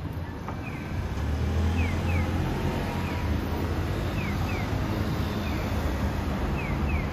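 City street traffic: a low engine rumble from a city bus and cars passing through an intersection, over which a Japanese pedestrian crossing signal chirps repeatedly in quick pairs of short falling chirps.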